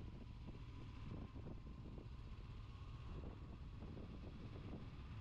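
Honda CB500X motorcycle's parallel-twin engine running steadily while riding, with wind rumble on the microphone.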